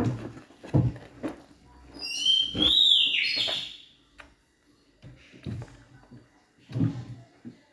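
Close mouth sounds of eating snacks: a few short chewing and crunching bumps. About two seconds in comes a high whistling squeal that rises and then falls, lasting about a second and a half.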